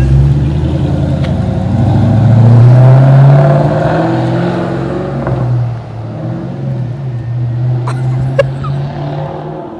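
Ford Mustang GT V8 exhaust as the car pulls away and accelerates gently down the street, rising to its loudest about three seconds in, then fading as it drives off.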